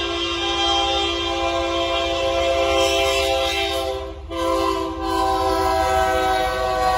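Union Pacific freight locomotive's multi-note air horn blowing a chord for the grade crossing as the train approaches, held long with two brief breaks about four and five seconds in. A steady low rumble sits underneath.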